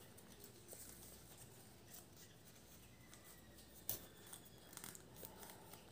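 Faint rustling and crinkling of a small sheet of origami paper handled and folded by fingers during an inside fold, with one short click of the paper about four seconds in and a few softer ticks after it.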